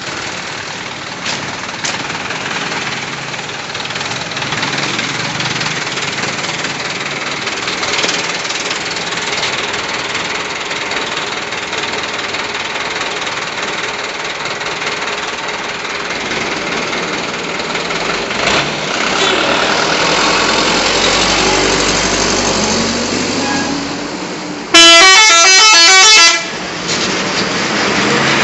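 Steady street traffic noise as a large vehicle approaches, its engine rising in pitch. Then, about 25 seconds in, a bus's telolet horn plays a loud, quick multi-tone melody for about a second and a half.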